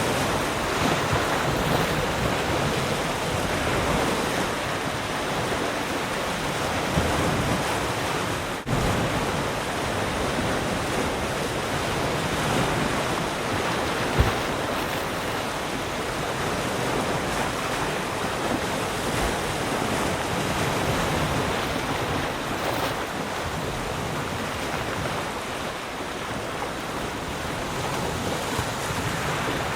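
Ocean surf washing steadily, rising and falling in slow swells. There is a brief dropout about a third of the way in and a short sharp click about halfway through.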